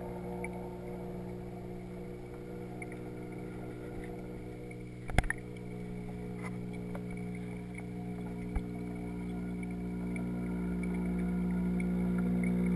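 Steady electric hum of aquarium equipment, heard underwater and muffled through a GoPro's waterproof housing, growing louder near the end. A sharp knock about five seconds in and a softer one a few seconds later, as the housing bumps against something in the tank.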